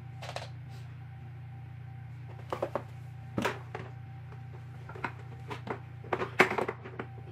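Hard plastic baby-swing parts knocking and clattering as they are handled and fitted to the metal frame, a series of short irregular knocks with some rustling, the loudest about six seconds in, over a steady low hum.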